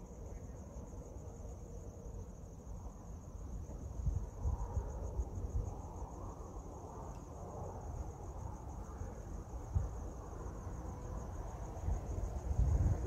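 Crickets trilling steadily at a high pitch, a continuous pulsing chirr. Low rumbles come and go beneath it, growing stronger near the end.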